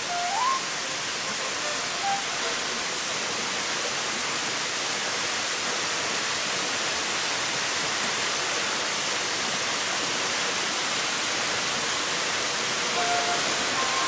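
Waterfall plunging into a rock pool: a steady, even rush of falling water. A few soft notes of background music come in around the first two seconds and again near the end.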